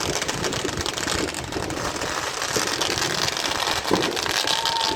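Fireworks crackling in a dense, continuous patter of tiny pops, with a louder bang about four seconds in.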